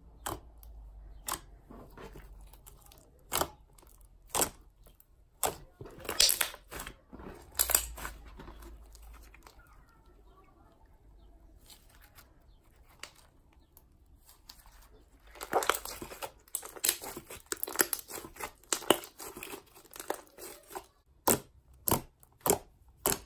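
Clay slime being kneaded and poked by hand, giving off sharp clicks and crackling pops. They come singly at first, then in a dense run of crackling in the last third.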